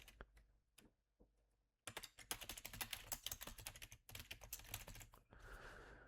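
Faint typing on a computer keyboard: a few keystrokes, a pause of about a second and a half, then quick steady typing for about three seconds. A brief soft hiss follows near the end.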